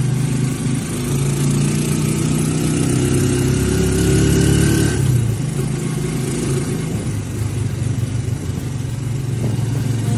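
Engine of a road vehicle heard from inside while riding in traffic: its note climbs for about five seconds, then drops as it eases off or shifts, and runs steadily.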